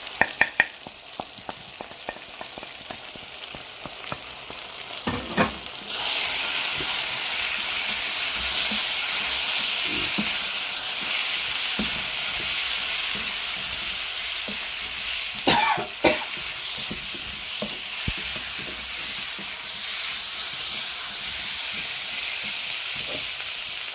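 Onions, carrots and potatoes frying in a pan with ground spices being stirred in: sizzling, with spoon clicks and knocks against the pan. The sizzling jumps louder about six seconds in and stays steady.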